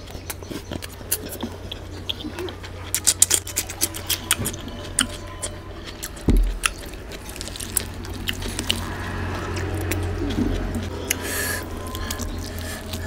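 Close-miked eating sounds: chewing and wet, sticky smacking clicks as bare hands squish curry-soaked rice and tear apart a curried goat head. A single dull thump comes about six seconds in.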